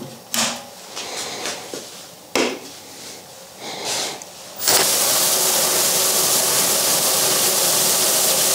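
A few light knocks and rubs of handling, then just past halfway a steady, loud whooshing hiss starts suddenly: a magnetic case tumbler switched on, spinning brass cases and cleaning pins in soapy water.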